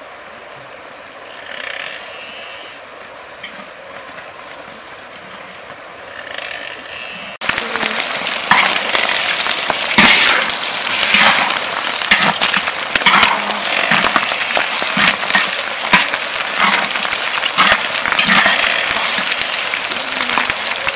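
Eggs sizzling in hot oil in a large metal wok, with a metal spatula scraping and clinking against the pan. It starts abruptly about seven seconds in and is loud. Before that there is only a quieter, steady river rush.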